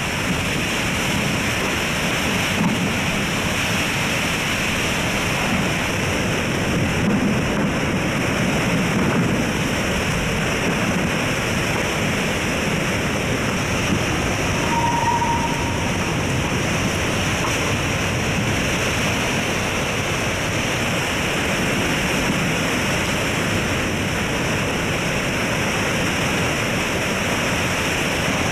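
Hurricane-force wind and heavy wind-driven rain, a steady loud rush of storm noise.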